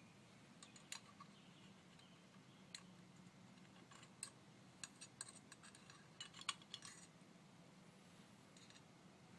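Faint, scattered light clicks and clinks of clutch friction plates and spacer plates being handled and set down, thickest about halfway through.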